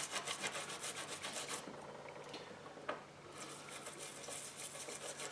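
Toothbrush bristles scrubbing a coin with quick back-and-forth strokes, faint, with a pause of about two seconds in the middle.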